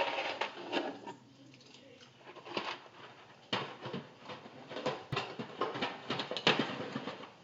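Scattered light knocks and rustling at irregular intervals, with a few sharper clicks.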